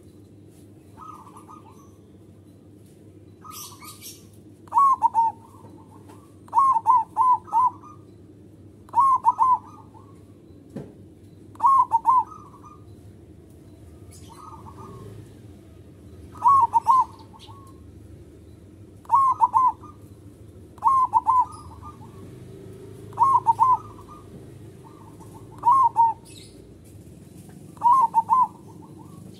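Zebra dove (local perkutut) cooing in song: about a dozen short phrases of two to four quick, falling coo notes, repeated every two to three seconds, over a low steady background hum.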